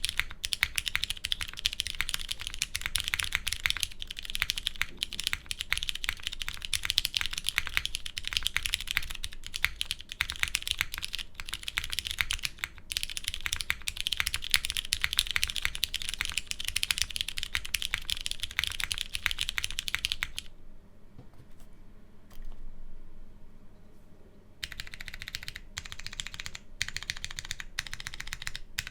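Typing on a Kibou Fukuro mechanical keyboard with Cherry MX Brown switches on an aluminum plate, under GMK keycaps. The keystrokes come fast and continuous, pause for about four seconds about two-thirds of the way through, then resume.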